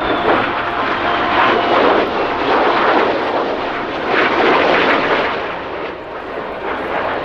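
Jet aircraft flying a low pass overhead: a loud jet engine roar that swells and fades, strongest about two seconds in and again midway through, easing off near the end.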